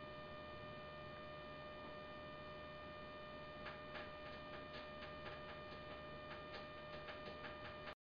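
Faint steady electrical hum with a thin high tone, joined about halfway through by faint irregular ticks, a few a second; it cuts off abruptly at the very end.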